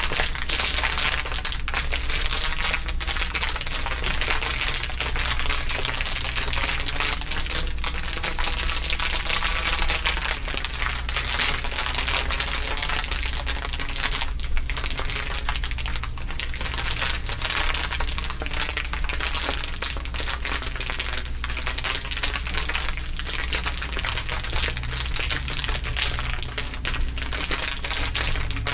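Several layers of ASMR crinkling at once: a dense, continuous crackle of many small clicks, with a steady low hum underneath.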